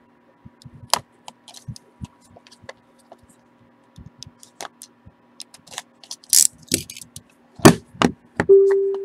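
Cardboard trading-card box being slit open with a box cutter and handled in gloved hands: scattered clicks, scrapes and knocks, with two loud knocks near the end, followed by a short steady low tone.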